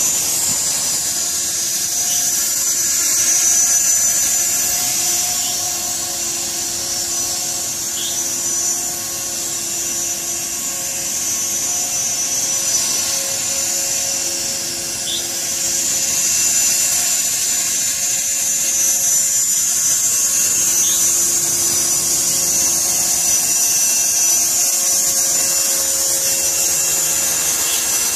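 CopterX 450 Black Angel electric RC helicopter in flight: its motor and spinning rotors whine high and steady, the level swelling and dipping slightly as it moves about.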